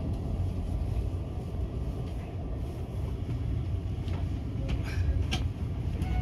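Passenger train running along the track, heard from inside the carriage: a steady low rumble, with a few faint clicks in the second half.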